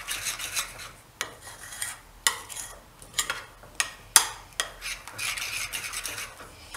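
Metal spoon stirring a thick, wet besan-and-cream marinade in a glazed ceramic bowl: wet scraping strokes with sharp clinks of the spoon against the bowl every second or so.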